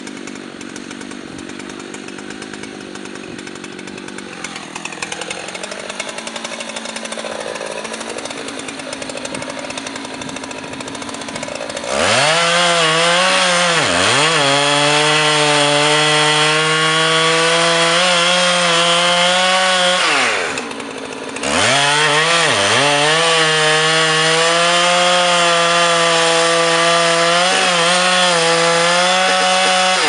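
Husqvarna 357XP two-stroke chainsaw running quietly, then revving up about twelve seconds in and cutting into the trunk of a rotten white fir, the engine note dipping as the chain bites. About twenty seconds in it lets off for a moment, then revs back up and keeps cutting.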